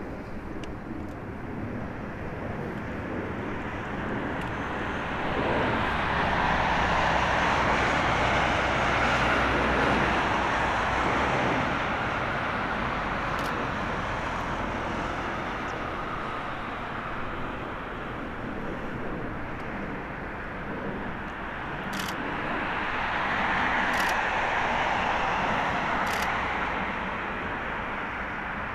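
Rolls-Royce Trent XWB engines of an Airbus A350-1000 airliner running through touchdown and the landing roll, a steady jet noise that swells about five seconds in, eases off, and swells again near the end as the aircraft rolls closer.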